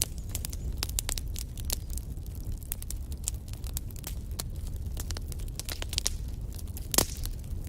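Wood fire burning in a fireplace: irregular sharp crackles and pops from the burning logs over a low steady rumble of the flames, with one louder pop about seven seconds in.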